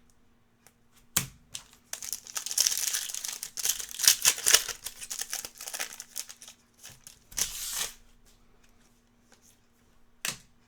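Trading-card pack wrapper crinkling and tearing for several seconds as it is opened, with a few sharp clicks and taps around it.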